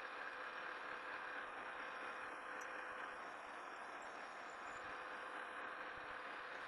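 Metal lathe running steadily, with a drill bit being fed into round steel stock by the tailstock handwheel.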